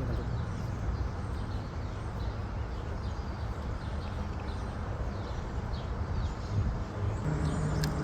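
Steady outdoor background noise with a low rumble and faint, short high chirps throughout; a low steady hum comes in about seven seconds in.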